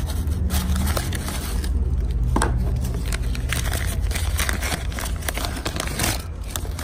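Paper crinkling and rustling in irregular crackles as a knife is unwrapped by hand from white tissue paper and a brown kraft-paper protective wrap, over a steady low rumble.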